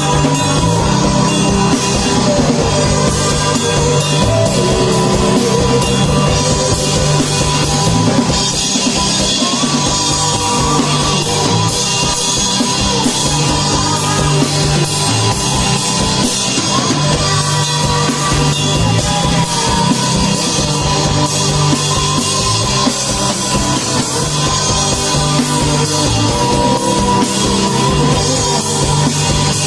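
A rock band playing live, drum kit and amplified instruments at a steady, loud level without a break.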